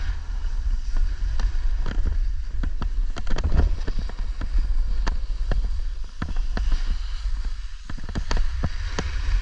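Wind rumbling on the microphone while riding down a ski slope, with frequent sharp clicks and scrapes of edges on snow.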